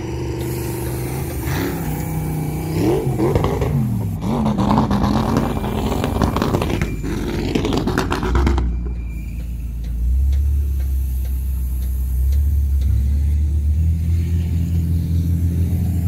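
An off-road 4x4's engine revving up and down, its pitch rising and falling, with rough noise as it drives on sand. About eight seconds in the sound changes abruptly to a steady low engine rumble.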